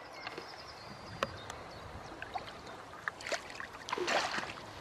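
Shallow lake water sloshing and trickling around hands as a grass carp is eased back in and released, with a few small splashes and drips.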